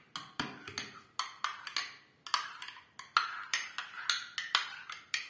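Metal spoon stirring a yogurt and lemon-juice mixture in a ceramic cup, clinking against the sides in short, sharp ticks about three times a second.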